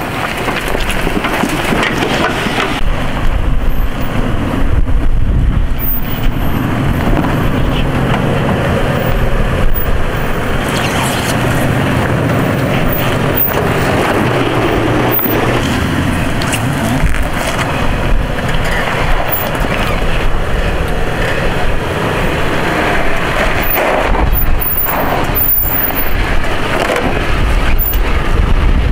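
Off-road 4x4 crawling slowly over a rutted trail, its engine running at low revs, with occasional knocks and scrapes from the vehicle working over the ruts.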